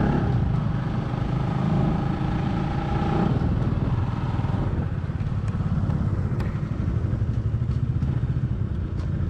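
Motorcycle engine running while riding, a steady low drone. A couple of held tones sound over it for the first three seconds, and from about five seconds in the engine's even, rapid pulse comes through.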